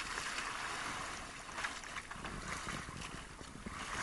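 Sea water splashing and rushing along the hull and outriggers of a small outrigger boat, a steady hiss with wind buffeting the microphone.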